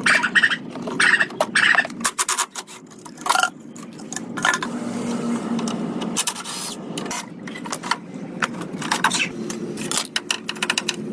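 Hand work on a car in a workshop: an irregular run of sharp clicks and knocks with scraping in between.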